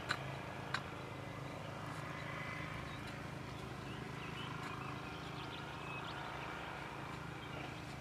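Rural outdoor ambience: light bird chirps over a steady low hum and breeze, with two sharp knocks in the first second.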